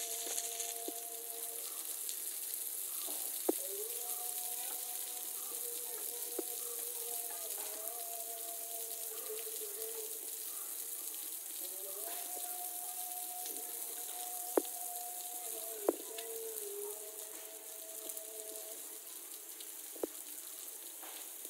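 Water hissing and spattering as an Asian elephant sprays water from its trunk over its head and back. Under it runs a faint two-note hum that shifts pitch now and then, with a few sharp clicks.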